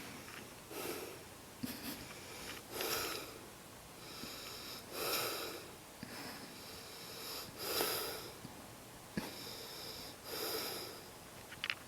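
A sleeping man snoring, with a loud breath about every two and a half seconds and quieter breaths in between.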